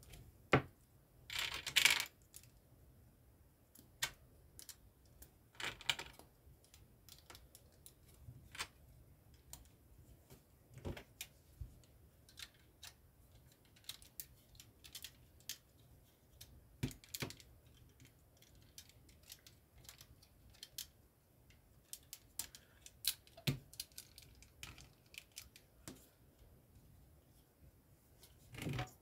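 Plastic LEGO pieces being handled and clicked together: irregular small clicks and short rattles, the loudest a rattling burst about a second and a half in.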